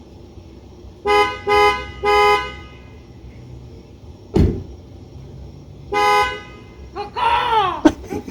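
Car horn honking three short times, then a thump, then one more honk. Near the end come warbling, pitch-sliding whoops from a person making bird noises.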